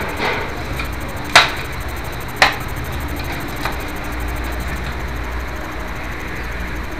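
Inverter welder parts handled during reassembly on a wooden workbench: two sharp knocks about a second apart, the first the loudest, with a few fainter clicks around them, over a steady low rumble.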